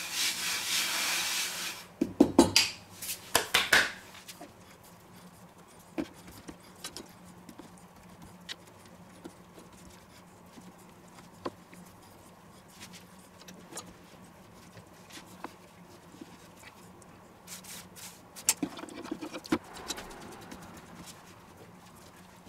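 Hands working pizza dough on a floured wooden cutting board. First a rubbing hiss as flour is spread across the board, then a few loud knocks, then soft scattered pats and taps as the dough is pressed and stretched out flat, over a faint steady hum.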